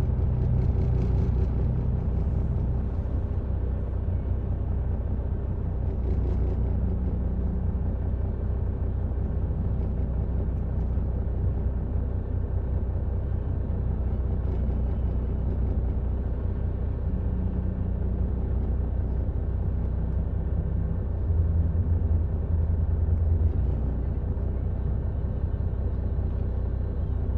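Car engine running, heard from inside the cabin: a steady low hum and rumble that grows briefly louder for about two seconds some three-quarters of the way through.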